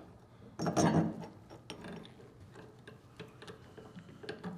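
Metal valve parts being handled: the bonnet set and shifted on the dump valve's body, with a louder clatter of clicks about a second in, then scattered lighter metal ticks.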